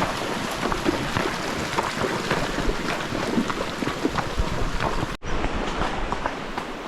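Horses wading through a river, water splashing around their legs, with wind buffeting the microphone. The sound drops out for an instant about five seconds in and is a little quieter after.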